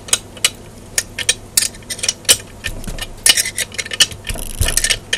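A hex key clicking and clinking against the steel bolts of an antenna rotator's housing as they are screwed in: irregular sharp metal clicks, coming thicker about three seconds in, with a dull knock near the end.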